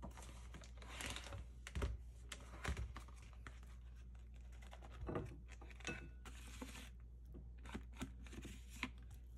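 A wooden spoon scraping cooked rice out of a thin plastic instant-rice tray into a glass bowl: irregular scrapes, taps and clicks, with the plastic tray crinkling.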